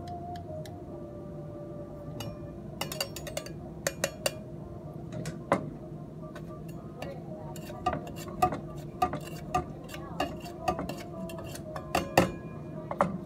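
A muddler pounding mint and lemon in a stainless steel cocktail shaker tin: irregular sharp knocks and clicks against the metal, starting about two seconds in and coming several a second at times, loudest near the end.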